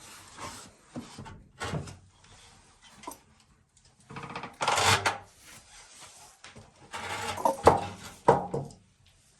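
Irregular clunks and scraping knocks, the strange noise a 1992 Suzuki Sidekick makes when driven in 4x4. Some are short sharp knocks and one scraping burst lasts about half a second; the loudest knocks come near the end.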